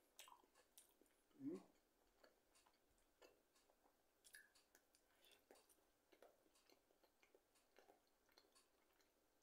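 Very quiet chewing of food, with faint scattered clicks and one short, louder sound about a second and a half in.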